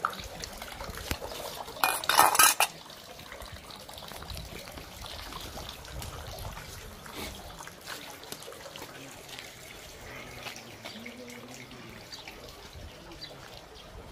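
Water trickling and splashing from a stone spring-water fountain into its stone basins, with a brief loud clatter about two seconds in.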